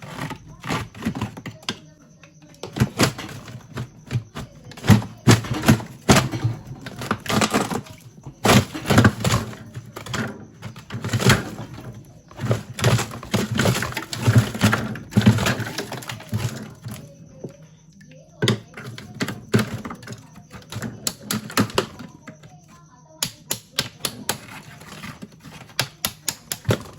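Rapid, irregular knocks and clicks of a hard tool chipping at thick ice built up inside a freezer compartment, pausing briefly past the middle and then coming faster near the end.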